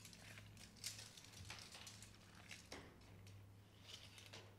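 Near silence with a few faint clicks and rustles from a tape measure being pulled out and held against a wall, over a low steady hum.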